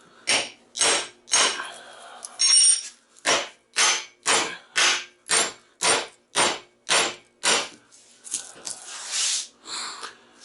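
Hammer blows on a brass drift, driving a stuck copper coil out of a transformer's steel core: a steady run of sharp metallic strikes, about two a second, then a couple of seconds of scraping near the end.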